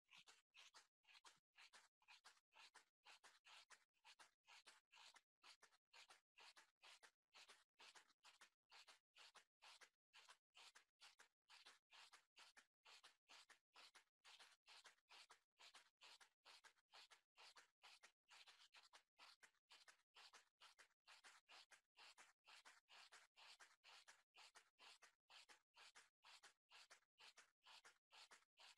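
Near silence: a faint hiss that pulses on and off about twice a second.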